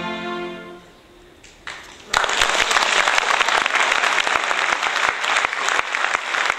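The orchestra's last held chord fades away in the first second. After a short hush, an audience breaks into applause about two seconds in and keeps clapping steadily.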